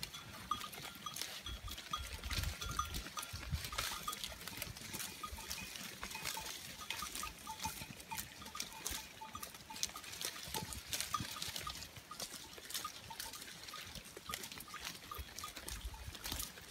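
A flock of sheep browsing on cut leafy branches: a steady patter of leaves rustling and twigs snapping as they strip and chew the foliage, with short tinkling tones that sound like small livestock bells.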